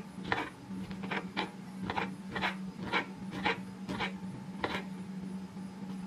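Kitchen knife chopping calabresa sausage against a wooden cutting board: a dozen or so sharp cuts, about two a second, stopping about five seconds in.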